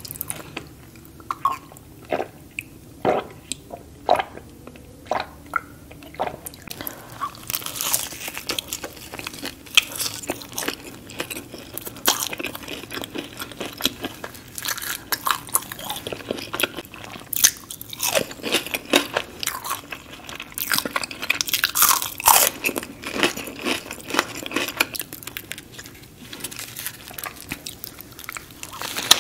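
Close-miked biting and chewing of a flaky croissant breakfast sandwich: crisp crunches with wet mouth sounds, thick from about seven seconds in. In the first few seconds there are only a few separate clicks and gulps as juice is drunk from a bottle.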